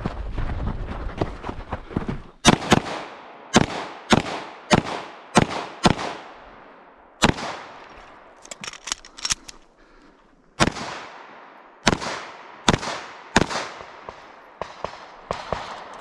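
Pistol shots fired in quick, uneven strings, about a dozen loud ones, each trailing off in an echo, with fainter shots from further away between them. A low rumble comes before the first shot, about two and a half seconds in.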